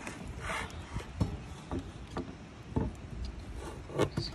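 Scattered knocks and scraping rubs on wood, from handling and movement on the bridge's old timber sleepers, coming irregularly about every half second.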